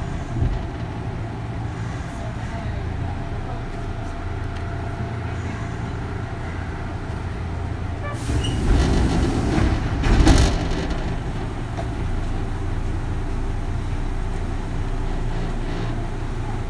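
Steady rumble inside a car of a Kintetsu 3200 series train, with a louder, rushing stretch from about 8 to 10 seconds in.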